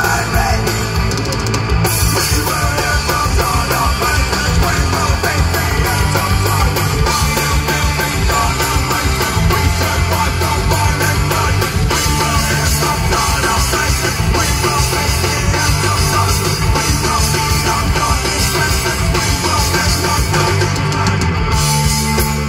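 A punk/metal band playing live, loud and without a break: guitars, bass and drum kit.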